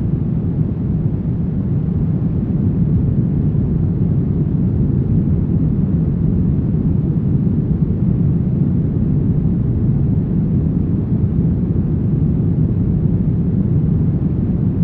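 Brown noise: a steady, deep hiss with most of its weight in the low end and little above, running evenly without change.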